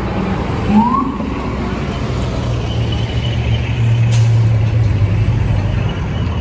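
Busy city street traffic: a steady wash of vehicle noise, with a brief rising squeak just under a second in and a heavy vehicle's low engine drone that grows stronger over the second half.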